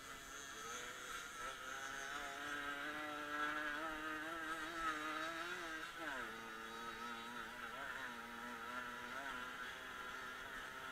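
Off-road motorcycle engine running under throttle, heard on board as it rides. Its note climbs steadily, falls sharply about six seconds in as the revs drop, then picks up again.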